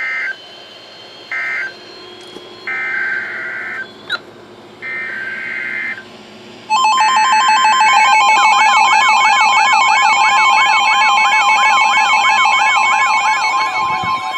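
Emergency Alert System SAME header data bursts, a series of short raspy digital bursts, followed about seven seconds in by the alert attention tones: several loud tones sounding together, one steady and one warbling up and down about twice a second.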